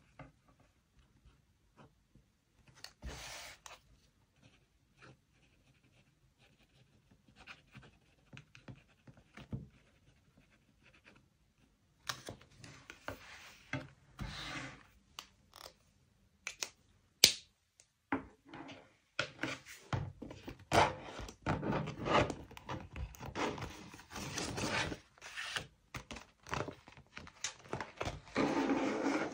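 Close-up handling of paper and stationery: scattered rubs and light taps at first, a sharp click about two thirds of the way in, then denser rustling and scraping near the end.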